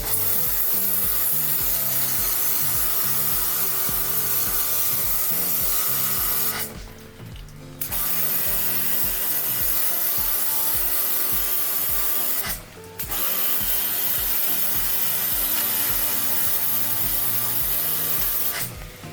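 Steady loud hiss of a water spray jet cleaning an air-conditioner fan coil. It cuts off twice for about a second and starts again, as if a trigger is released.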